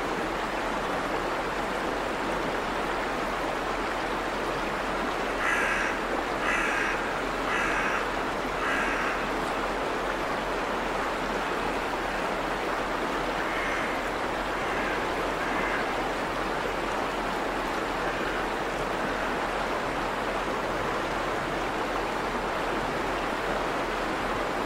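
Water rushing steadily over the Siegwehr, a weir on the river Sieg. A bird gives four harsh calls about a second apart about a quarter of the way in, then three fainter calls a few seconds later.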